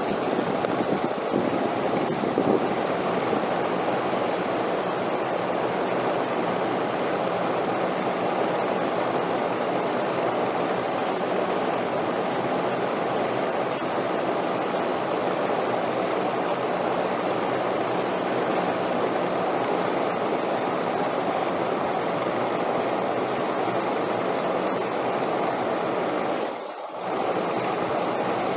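Steady rushing wind noise that dips briefly near the end.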